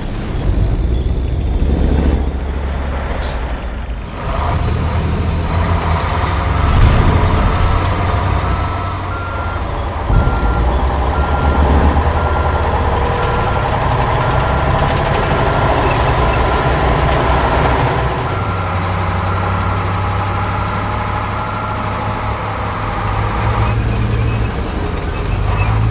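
Heavy truck's diesel engine running, with a short hiss of air brakes about three seconds in and a reversing beeper sounding a steady repeating beep from about six seconds in until near the end.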